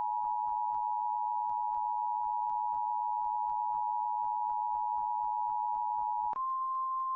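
Emergency Broadcast System attention signal: a steady two-tone alarm that switches to a single, slightly higher steady tone about six seconds in.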